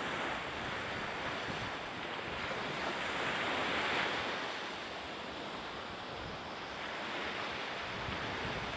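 Wind buffeting the microphone over the wash of the sea, a steady rushing noise that swells about three to four seconds in.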